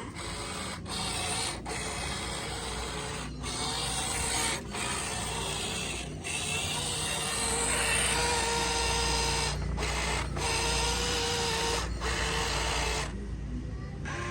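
Electric motors and plastic gearing of a radio-controlled model construction machine whirring, with a faint steady whine and several brief breaks.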